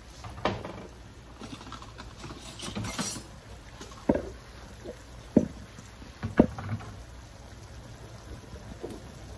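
Chicken pieces cooking in oil and their own juices in a pot, spluttering, with a few sharp pops, two of them loud a little past the middle.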